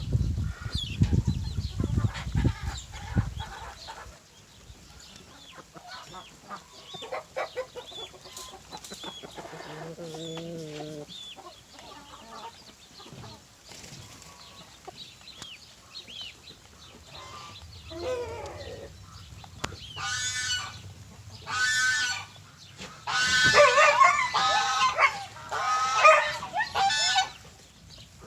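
Backyard chickens clucking, with roosters crowing; the calls grow louder and come in a close run of several in the last third. A low rumble sits under the first few seconds.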